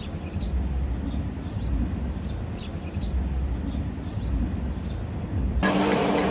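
A low steady rumble with faint, short high chirps like small birds. About five and a half seconds in, a stick-welding arc on a 7018 electrode strikes and crackles steadily over a low hum.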